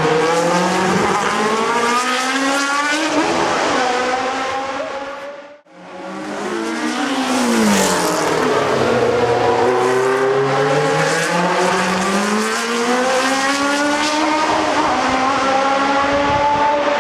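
Historic Formula 1 race car engines running at high revs, their pitch climbing and dropping through gear changes as the cars pass, with more than one car heard at once. The sound fades out briefly about five and a half seconds in, then comes back.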